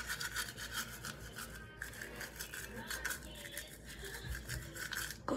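Manual toothbrush scrubbing teeth with quick back-and-forth strokes.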